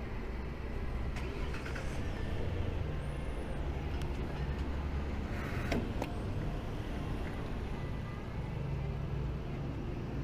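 Gas pump nozzle dispensing gasoline into a motorcycle fuel tank: a steady flow with a low hum underneath and a faint click about six seconds in.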